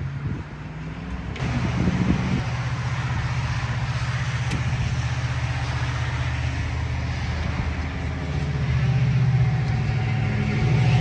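Van engine running with a steady low hum and a rushing noise over it; the sound steps up about a second and a half in and gets louder again from about eight seconds in.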